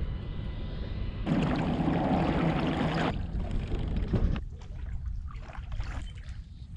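Kayak moving through shallow water among tule reeds, heard as a two-second rush of noise about a second in, then lighter crackle and trickle at the hull. A low wind rumble on the microphone sits under it all.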